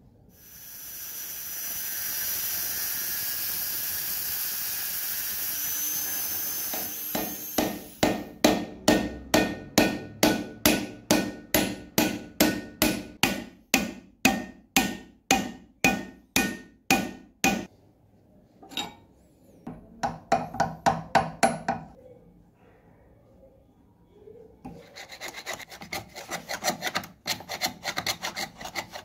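Tools working on an old iron padlock. First a small power tool runs with a steady high whine for about seven seconds. Then the metal is struck with a hammer in a steady run of about twenty blows, roughly two a second. A quicker flurry of blows follows, and near the end comes rapid back-and-forth rasping, like filing or scraping the metal.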